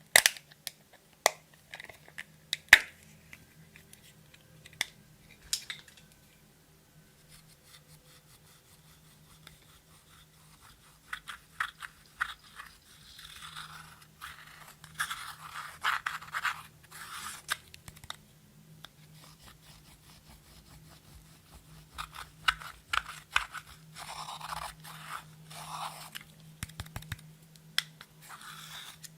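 Clear slime being worked by hand with makeup and glitter: a few sharp clicks and taps, then two longer stretches of wet squishing and scraping as the slime is mixed.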